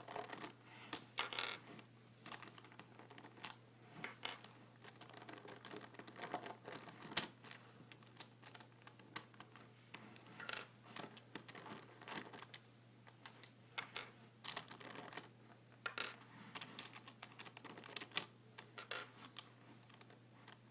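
Plastic pieces of a 5x5 Rubik's Cube clicking and snapping as the middle pieces are pulled out by hand, a faint scatter of small irregular clicks.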